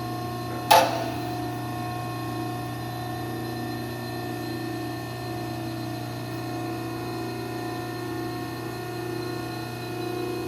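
Marathon V6030-HD cardboard baler's hydraulic power unit running with a steady hum, its 10 HP electric motor driving the pump as the ram comes down on its automatic cycle. A single sharp clack sounds under a second in.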